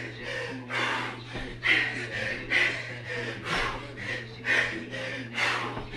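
A man breathing hard and fast, with forceful gasping breaths about once or twice a second: the heavy breathing of exertion while lifting a 50 lb dumbbell near the end of a long workout.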